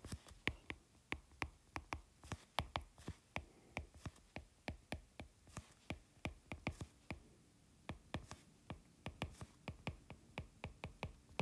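Stylus tip tapping and scratching on an iPad's glass screen during handwriting: a faint, irregular run of sharp ticks, several a second, pausing briefly between words.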